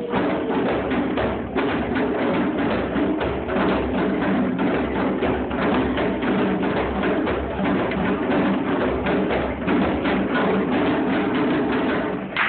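Ensemble of djembe hand drums played together in a steady, fast, continuous rhythm of sharp hand strikes.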